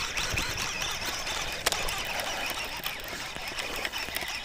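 Baitcasting reel (Quantum Team KVD) working through a cast and retrieve of a topwater frog: a faint steady whir with fine ticking, and one sharp click about a second and a half in.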